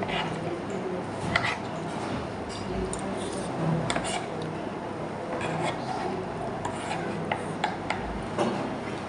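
Fork and spoon scraping and clinking against a plate while eating, with several short sharp clinks over a steady low room hum.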